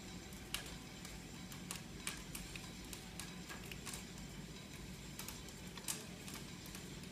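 Scratched, hand-marked film print running on playback in a film cutting room: a faint steady low hum with irregular sharp clicks and pops, the loudest about half a second in, near two seconds and near six seconds.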